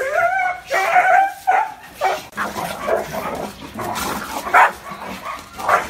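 A dog barking repeatedly in short, uneven bursts. In the first second and a half there are higher, wavering cries.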